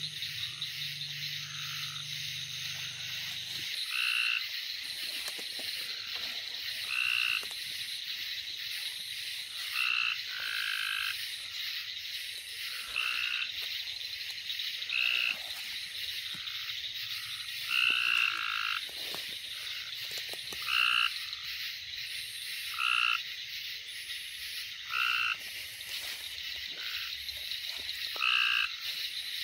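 Frogs calling at night: a short two-pitched call repeats every two to three seconds, louder in the second half, over a steady high-pitched chorus.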